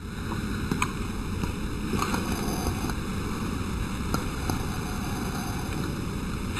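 Steady rushing noise of wind on the microphone, with a few faint clicks.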